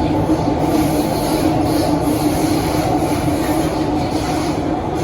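Running noise heard inside a CRRC Sifang CT251 metro train between stations: a steady rumble of wheels on rail with a constant low hum.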